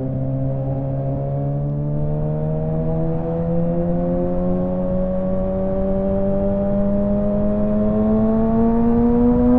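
Kawasaki ZX-6R 636's inline-four engine and exhaust pulling steadily under acceleration in one gear, its pitch climbing slowly and smoothly as the revs rise.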